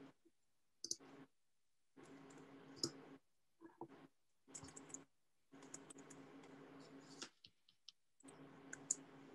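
Faint computer mouse clicks, a handful of single clicks a second or two apart, over a faint low hum that cuts in and out repeatedly.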